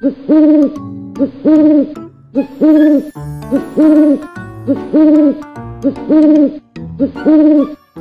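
Owl hooting: seven evenly spaced two-part hoots, each a short note running into a longer one, about one a second.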